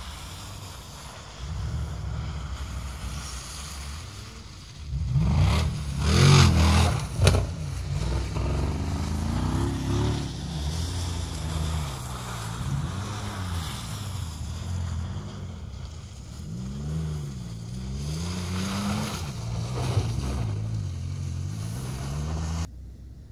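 Off-road competition 4x4's engine revving as it drives a muddy track, its pitch rising and falling again and again through gear changes, loudest around six seconds in. It cuts off suddenly just before the end.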